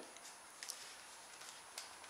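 Near silence: quiet room tone with two faint clicks, about a second apart, from a small plastic toy helicopter and its transmitter being handled.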